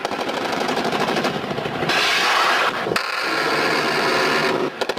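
Black Hawk helicopter's rotor blades chopping in a fast, steady rhythm. The sound dips briefly about three seconds in and again near the end.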